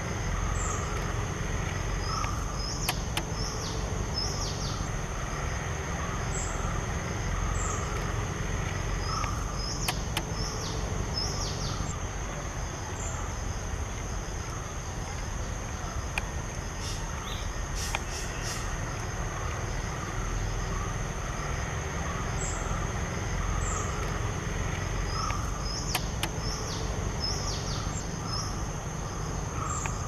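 Outdoor ambience: a steady high-pitched insect drone, groups of short, high, falling bird chirps coming and going, and a steady low rumble underneath.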